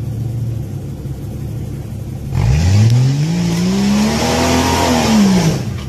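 An off-road 4x4's engine running low, then revved hard about two seconds in under load on a steep rock ledge: the pitch climbs for about two seconds, peaks and falls back. A loud rushing noise runs alongside the revving, and both stop abruptly near the end.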